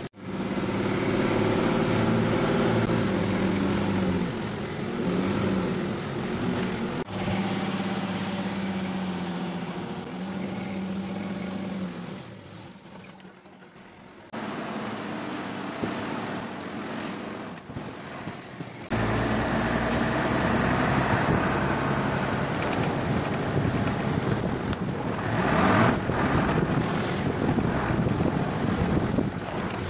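Truck engine running with road and wind noise inside the cab of a moving truck. The engine drone is steady and strongest in the first half; later the rushing road and wind noise dominates, and the sound changes abruptly several times, with a quieter stretch about a third of the way in.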